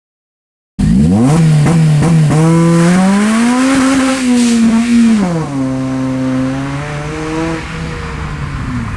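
Honda Civic Type R FN2 engine running through a COBRA resonated sports exhaust, revving and accelerating. It starts suddenly about a second in; the pitch jumps up in quick steps, climbs to a peak around four seconds in, drops sharply, then holds fairly steady.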